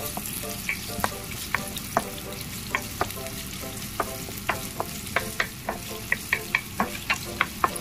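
Chopped onion and garlic sizzling in hot oil in a nonstick frying pan, with a wooden spatula scraping and knocking against the pan as it stirs them. The short spatula strokes come faster in the second half.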